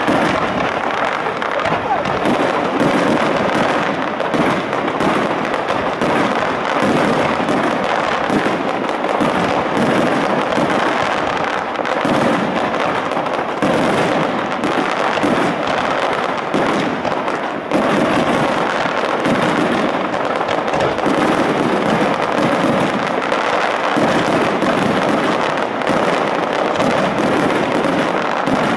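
Aerial fireworks display: a dense, unbroken barrage of bangs and crackling from shells bursting overhead.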